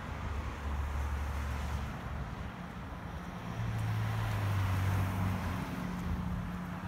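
Wind buffeting the microphone: a low rumble under a steady rushing hiss, swelling a little about halfway through.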